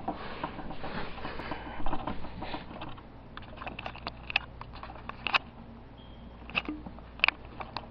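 Handling noise: faint rustling for the first few seconds, then scattered light clicks and taps.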